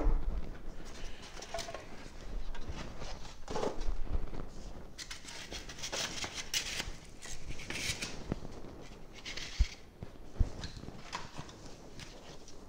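Packing material being handled inside a cardboard shipping box: scraping and rustling of cardboard and styrofoam, with two short knocks near the end.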